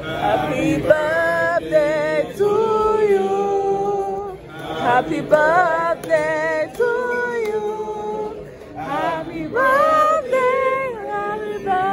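A man singing unaccompanied, a slow melody with long held notes that glide between pitches.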